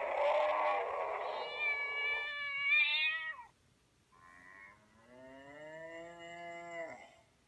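Recorded cat meows played back through a phone speaker by an animal-sounds app: two long meows, the second starting about four seconds in.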